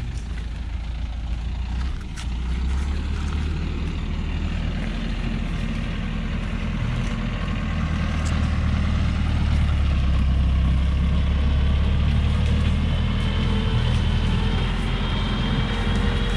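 Loaded logging truck's engine labouring hard as it climbs a steep, muddy slope, growing louder as it draws closer. A thin high whine joins near the end.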